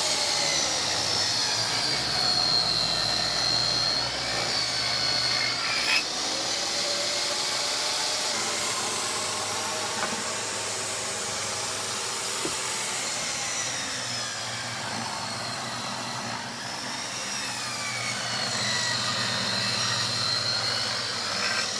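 Portable jobsite table saw running and ripping along a long 5/4 by 6 wooden trim board, the blade raised about 1.5 inches to cut a blade-width relief off the back of the board. The motor's high whine sags in pitch as the blade bites in, near the start and again near the end.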